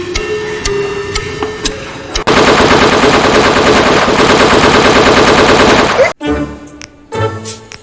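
A sustained burst of rapid automatic gunfire about two seconds in, lasting about four seconds and cutting off suddenly. Music with a ticking beat plays before the burst, and jingling music after it.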